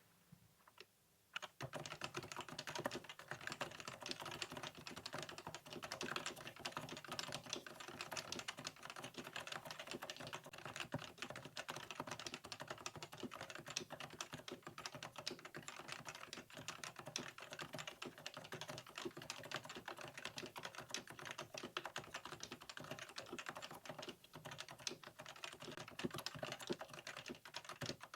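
Fast, continuous typing on a Sony XPRI NS keyboard with stock Topre switches, the keystrokes following close on one another. It starts about a second and a half in.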